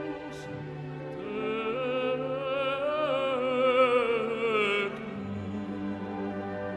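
Background music: an operatic solo voice singing with wide vibrato over orchestral accompaniment. The voice rises to a long high note about halfway through and falls away before the end, leaving the lower accompaniment.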